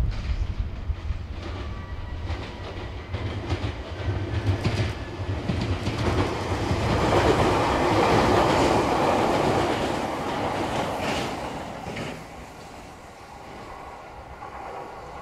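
JR East E491 series East i-E inspection train running through the station without stopping: rumble of wheels on rail with clicks over the rail joints, growing as it comes close and loudest about seven to ten seconds in as the cars pass, then fading once it has gone by.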